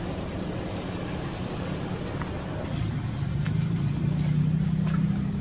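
Low, steady hum of a vehicle engine running, growing louder about three seconds in, with a few faint light clicks over it.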